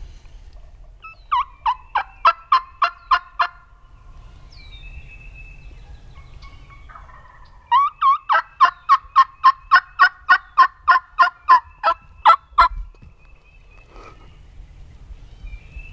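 Hen-turkey yelping in two runs, a short run of about nine yelps, then after a pause a longer run of about twenty, about four a second.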